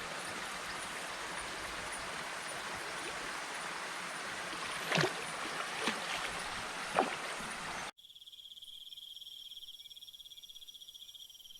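Steady rushing water with three short, sharp splashes about five to seven seconds in. At about eight seconds it cuts off abruptly, leaving a quieter, steady high-pitched insect chorus.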